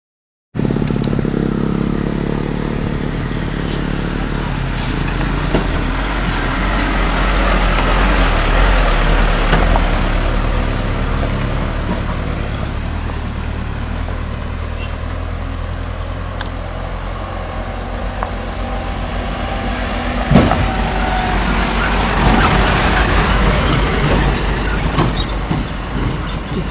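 Diesel engines of sand-laden Mitsubishi Canter dump trucks running as they drive by on a gravel road, a steady low drone. A single sharp knock about twenty seconds in.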